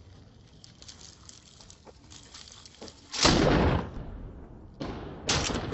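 A sudden loud blast about three seconds in, dying away over a second, from an explosion or a very close heavy shot. Near the end, bursts of rapid automatic rifle fire begin.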